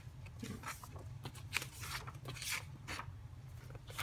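Paper rustling as the pages of a softcover workbook are handled and turned by hand, a string of short brushing swishes over a steady low hum.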